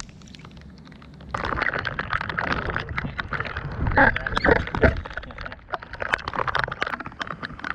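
Handling noise on a camera close to the mic: rubbing and scraping with many clicks and knocks. It sets in about a second in and is loudest in the middle, as the camera is moved and repositioned.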